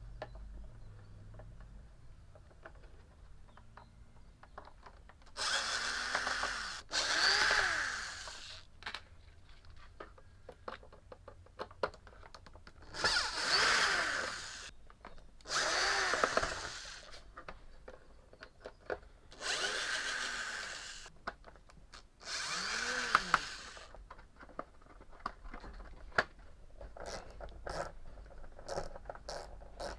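Power drill-driver backing out the scooter's panel screws in about six short runs, the motor spinning up and winding down each time. A run of light clicks and taps near the end.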